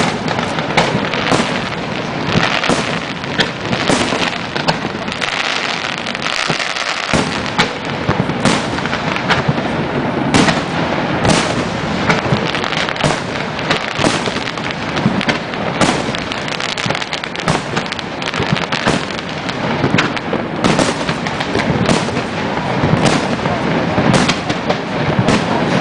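Aerial fireworks display: a continuous run of shell bursts going off at irregular intervals, often more than one a second, over a steady wash of noise between the bangs.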